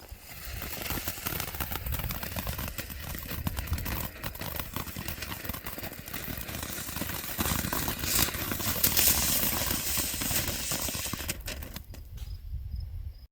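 Small ground firework fountain (Mighty Max 6-inch backyard fountain) burning: a steady spray of hissing and dense crackling, strongest about eight to ten seconds in, then cutting off suddenly.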